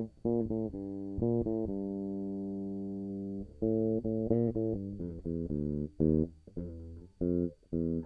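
Samick Fairlane electric bass being played: a few quick plucked notes, then one note held for about two seconds, then a run of short, choppy notes.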